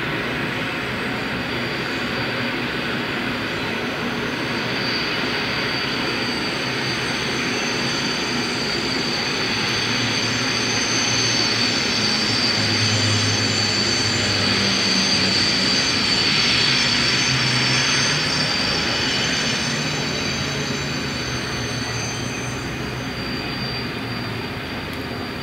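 Freight train of covered wagons rolling slowly past behind a pair of FS electric locomotives. A rumble of wheels carries a steady, high-pitched whine, and both grow louder a little past the middle.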